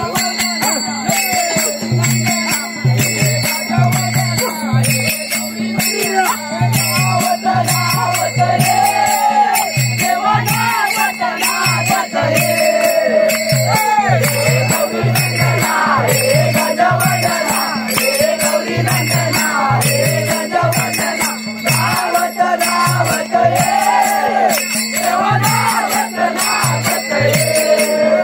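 Music: a steady drum beat about twice a second with jingling bell-like percussion, a held drone tone and a wavering melody over it.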